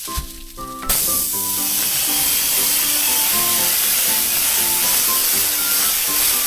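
Air spray gun hissing steadily as it sprays paint, starting about a second in. Background music with a light melody plays underneath.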